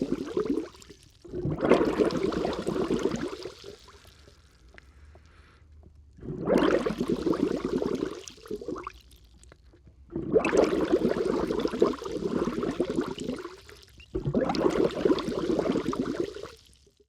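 Air blown out under water, bubbling in five separate bursts of about two to three seconds each, with short pauses between them. The first burst is already ending as the sound begins.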